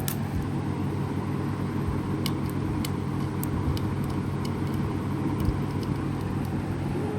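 Steady low background rumble with a scattering of light, sharp clicks from a small screwdriver working the screw that secures a phone's motherboard.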